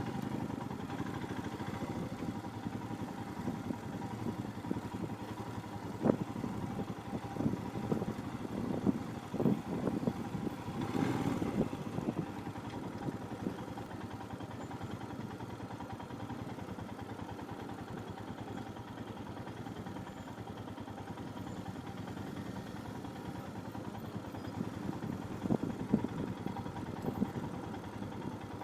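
Motorcycle single-cylinder engine running steadily at low speed on a rough off-road dirt track, with scattered knocks and rattles from the bike going over bumps, bunched together a few seconds in and again near the end.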